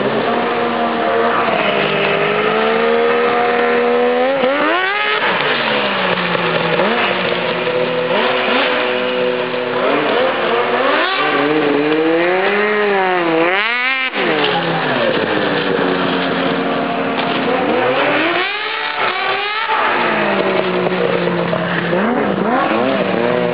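Two-stroke snowmobile engine with an aftermarket exhaust, running and being revved up and back down several times, its pitch rising and falling with each rev.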